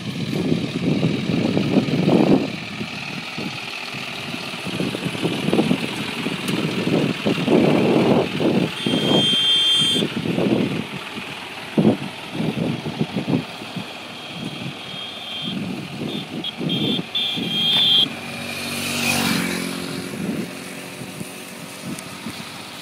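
Diesel tractor-loader engine revving in repeated surges, rising and falling many times as it works. A high whine comes and goes twice in the middle stretch.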